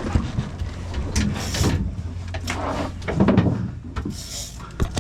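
Knocks, bumps and scraping of gear and bodies against a fishing boat's deck and rail over a steady low boat hum, with two short hissing rushes of noise, about a second and a half in and again near four seconds.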